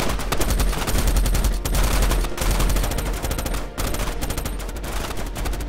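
Heavy gunfire from many weapons: rapid shots in close succession over a low rumble, with a few brief breaks between bursts.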